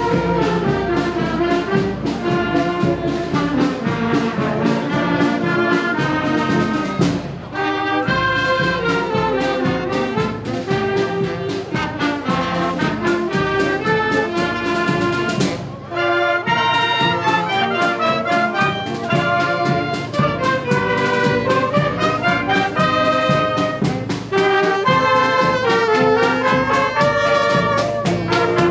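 Wind band playing, brass to the fore, with a moving melody and short breaks between phrases about seven and sixteen seconds in.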